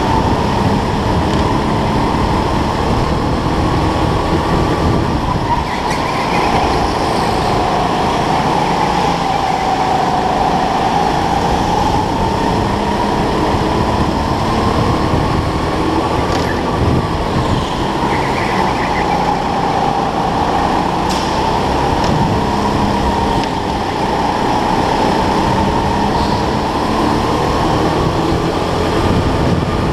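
Racing go-kart's motor running at speed, heard from onboard the kart, its pitch rising and falling slowly as the kart brakes for corners and speeds up again.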